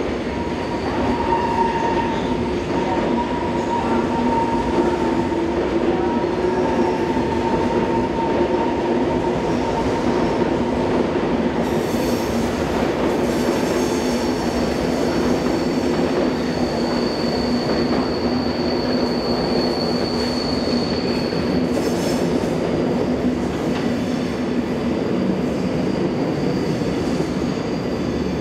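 SBB IC 2000 double-deck passenger coaches rolling slowly through station points and curves: a steady rumble with wheel squeal. A squeal sounds through the first third, then a higher, thinner squeal holds for several seconds past the middle.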